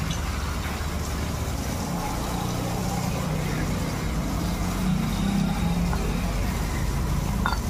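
Water from a hose spraying onto an auto-rickshaw's metal tappet cover and splashing on a wet concrete floor, rinsing it off. A steady low rumble runs underneath.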